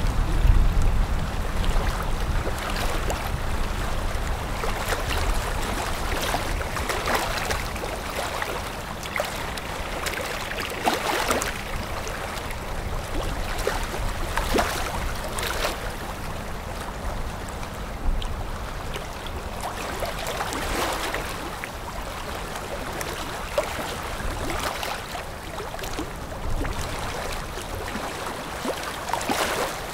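A motor patrol boat running past on a river: the water rushes and splashes in its bow wave and wake, over a low, steady engine hum.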